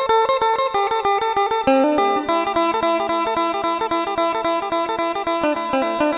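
Isan phin, the Thai plucked lute, playing a fast picked melody over a steady drone note that sets in about two seconds in.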